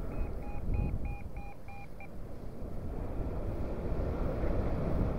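A paragliding variometer beeping in short quick pips, about four a second, for the first two seconds and then falling silent; the beeps are its lift tone, the sign that the glider is climbing. Wind rumbles on the microphone throughout.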